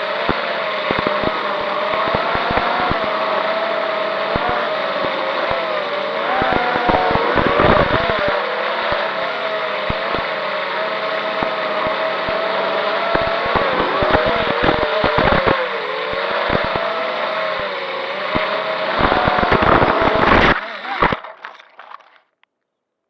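FPV racing quadcopter's brushless motors whining, the pitch wavering up and down with throttle, with frequent crackling clicks. The sound cuts out about 21 seconds in and fades to silence.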